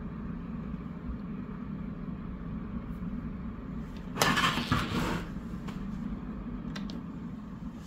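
Prima Klima Whisper Blower 125 mm inline duct fan running with a steady low hum and airflow hiss. About four seconds in a louder, brief rush of noise lasts about a second, and a faint click follows near the end.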